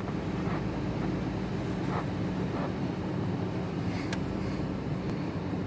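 2010 Nissan Armada's 5.6-litre V8 running steadily, with an intermittent clicking: a few faint clicks and one sharp click about four seconds in.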